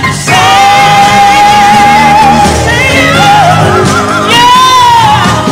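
A women's gospel vocal group singing with band backing, the lead voice holding a long note with vibrato in the first half and belting a higher held note near the end.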